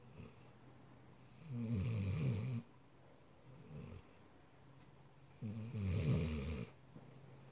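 Sleeping dog snoring: two loud snores about four seconds apart, each lasting about a second, with a weaker one in between.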